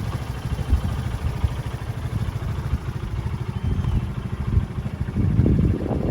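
A UTV's engine idling, a low pulsing rumble that swells briefly about five seconds in.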